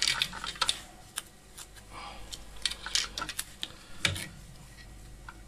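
Electrical tape being pulled off its roll and wrapped around the cut end of a steel cable: irregular crackles and clicks, with a dull knock about four seconds in.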